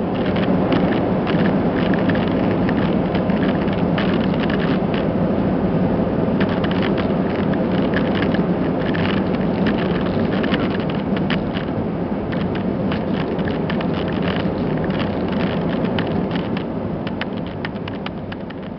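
Airbus A320 landing roll heard from inside the cabin: a loud, steady roar of engines and runway rumble that swells in the first second, with many sharp rattles and clicks throughout, easing off over the last few seconds as the aircraft slows.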